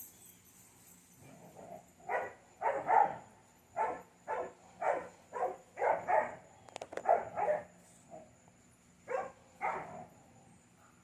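A dog barking in a string of about a dozen short barks. After a brief pause near the end come two more barks.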